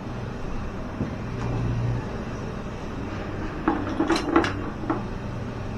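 A quick run of about five sharp knocks and clatters of hard objects, a little over halfway through, over a low steady hum.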